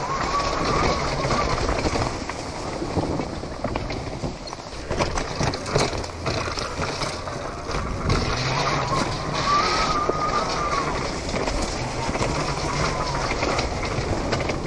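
Homemade electric Honda CR dirt bike ridden down a rough forest trail: the electric motor whines, rising and falling in pitch with the throttle, several times. Under it run a steady rush of riding noise and frequent knocks and rattles as the bike goes over roots and rocks.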